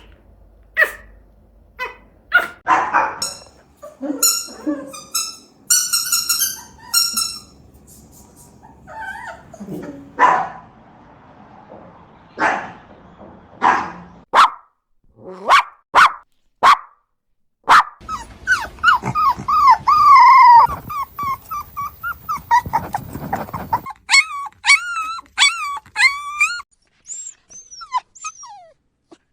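Dog barking repeatedly in short, separate barks, then whining in high, wavering calls in the second half.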